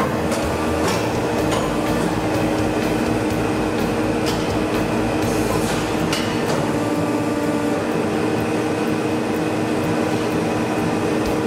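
CNC tube-bending machine running as it bends a metal exhaust tube: a steady mechanical hum with several short sharp clicks and clanks.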